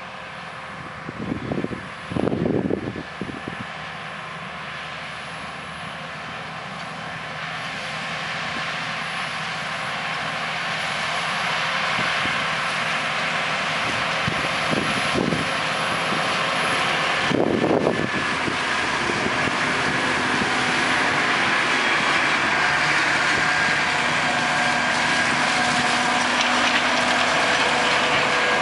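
Large diesel tractor pulling a disc harrow across a field, its steady engine drone growing louder as it approaches. Two brief louder rumbles come about two seconds in and again at about seventeen seconds.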